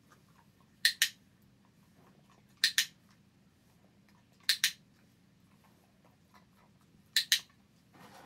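Dog-training clicker pressed and released four times, each a sharp double click, about two seconds apart: the marker for the puppy lying down, each followed by a food reward. A soft rustle near the end.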